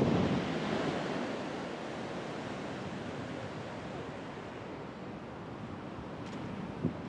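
Ocean surf washing on a sandy beach, with wind on the microphone; the wash is loudest at the start and eases off after a second or two. A short thump near the end.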